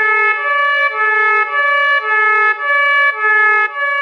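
Ambulance siren sounding a two-tone hi-lo call, switching between a lower and a higher note about every half second.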